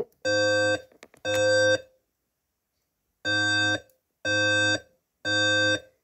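Fire alarm voice-evacuation alert tone, the 520 Hz Code-3 tone of a Notifier NFS2-3030 message: half-second electronic beeps in the temporal-3 evacuation pattern. The last two beeps of one group of three end, then after a pause a full group of three beeps sounds.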